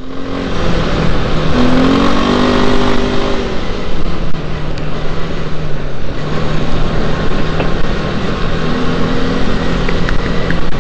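Off-road motorcycle engine running along a rutted dirt track, the revs climbing and easing about two seconds in and again near the end, over a steady rush of wind and riding noise.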